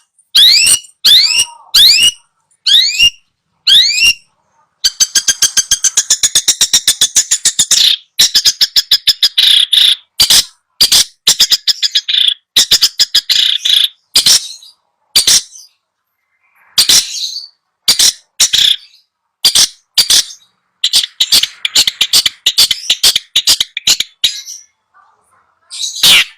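Long-tailed shrike song from a recording. It opens with a few rising chirps, goes into a fast rattling run of notes about a dozen a second, then breaks into separate harsh calls and chattering phrases.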